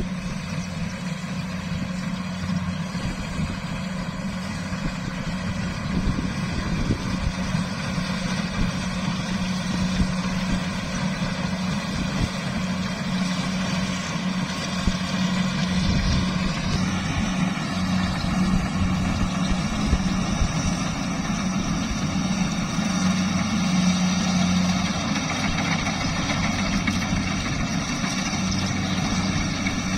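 Crawler rice combine harvester's diesel engine running steadily under load as it harvests lodged, flattened rice, a constant mechanical hum with a whine above it. It grows louder and brighter about halfway through as the machine comes closer.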